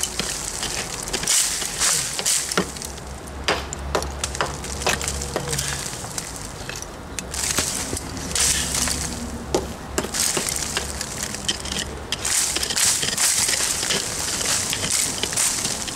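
Hammer knocking and scraping inside a hole in an old cinder block, breaking out loose sand fill, roots and an old bird's nest, with crumbled debris falling down the wall. Irregular knocks and gritty scraping: the loose material is being cleared out before the block is patched.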